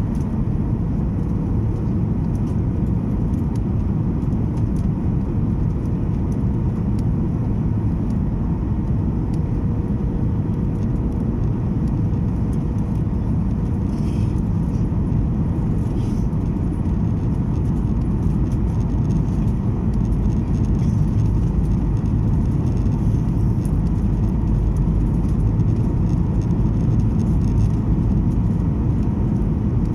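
Steady low rumble of a Boeing 737's engines and airflow heard from inside the passenger cabin, with a faint thin tone that fades out partway through and a slight swell in loudness in the second half.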